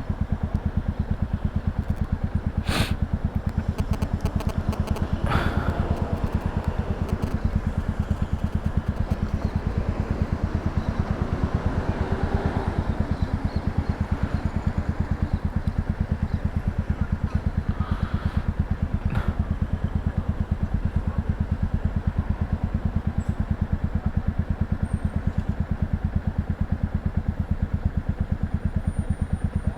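Royal Enfield Classic 350's single-cylinder engine running through an aftermarket sport end can: an even, steady low beat with no revving. A few sharp clicks sound over it, about three seconds and nineteen seconds in.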